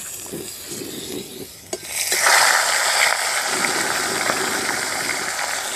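Katla fish head slid into hot mustard oil in a kadai, setting off a sudden loud sizzle about two seconds in that keeps on steadily as it fries.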